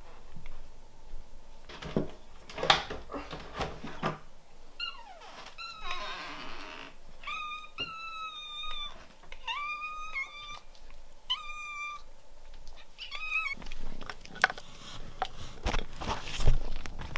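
Domestic cat meowing about six times in a row, each call under a second and a half long, begging to be fed. Before and after the calls come clinks and knocks of the food and water bowls being handled.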